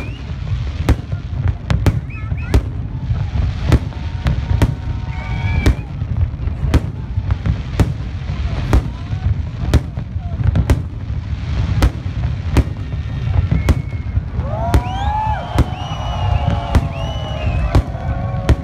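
A fireworks display: sharp bangs, more than one a second, over a constant deep rumble of bursts.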